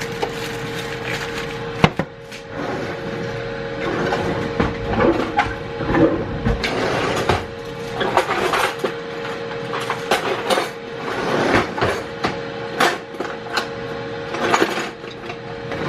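A spoon stirring a pot of cheese sauce, scraping and knocking against the pot in irregular clicks and clanks, with one sharp knock about two seconds in, over a steady hum.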